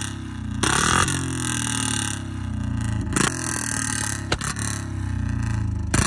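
Royal Enfield Bullet's single-cylinder engine revved by hand on its throttle, its pitch rising and falling, with several sharp pops from the exhaust. The owner is checking whether it still misfires.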